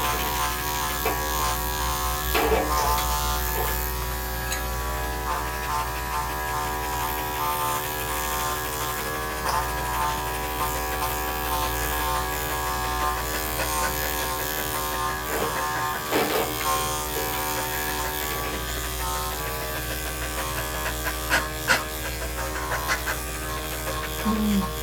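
Electric dog grooming clippers fitted with a 7 blade running steadily, buzzing as they shave a Portuguese Water Dog's coat, with a few brief knocks.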